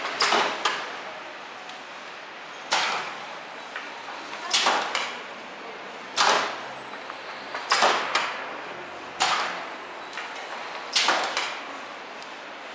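Mechanical caterpillar (La Chenille of Les Machines de l'île) being worked by its rider: short bursts of hissing air from its actuators, about every one to two seconds and some in quick pairs, as it moves along its branch.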